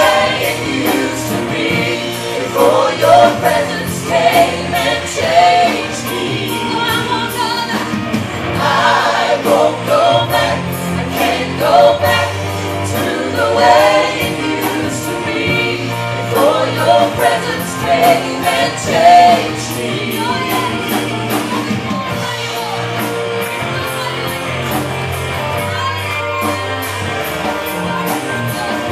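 Live worship band: several voices singing together over bass guitar, keyboard and drums with steady cymbal ticks. About twenty seconds in the singing largely drops away and the band plays on.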